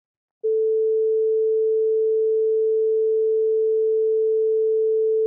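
Steady 440 Hz sine-wave test tone that starts about half a second in and holds for about five seconds. It is one step in a series of tones each 3 dB louder than the last, this one standing for a level safe to listen to for 2 hours.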